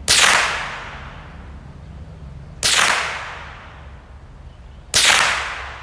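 Three shots from a Marlin Model 60 semi-automatic .22 LR rifle, a little over two seconds apart, each a sharp crack with a trailing echo.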